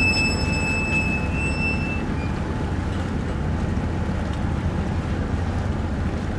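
Steady low engine rumble of a boat on the water, with wind noise over it. A thin high whistling tone sounds over it for the first couple of seconds.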